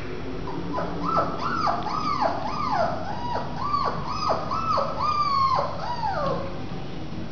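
Month-old Rough Collie puppy whining: a quick run of about a dozen short high cries, each rising and then falling, about three a second, starting about a second in and stopping near the end.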